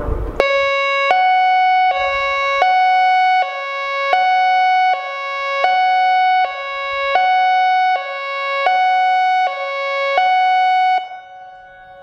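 American Signal Corporation I-FORCE electronic outdoor warning siren sounding its hi-lo tone during a test: two steady pitches alternate evenly, each held about three quarters of a second. It starts about half a second in and stops shortly before the end.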